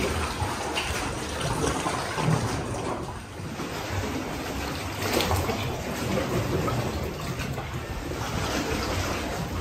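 Sea swell surging and sloshing against the rock walls inside a sea cave, the water noise swelling and fading so that the cave seems to breathe.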